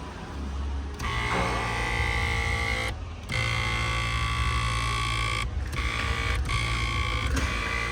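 Driver-side power seat motor of a 2014 Kia Cadenza running the seat along its track with a loud grinding whine. It starts about a second in and stops briefly about four times. It is louder than normal, which the technician suspects comes from a black tube rubbing against the seat rail.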